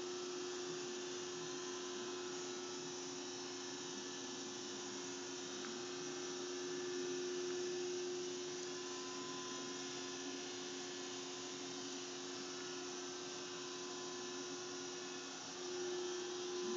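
Steady hum of an electric machine running, with a constant tone and an even hiss over it that dip briefly near the end.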